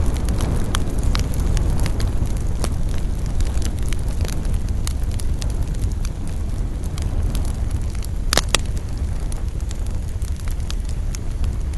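Campfire burning, with a steady low rumble under frequent small, sharp wood crackles and a louder double pop about eight seconds in.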